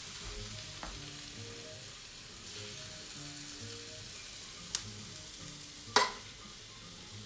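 A spoon scraping cooked mushrooms out of a frying pan onto polenta, over a faint steady hiss from the still-hot pan. The spoon clinks against the pan twice, a light tick and then a sharper, louder clink about six seconds in.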